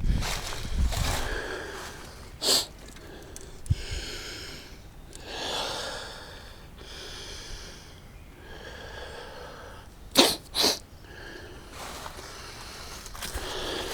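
A person sniffing and breathing close to the microphone, with two loud, sharp sniffs in quick succession about ten seconds in.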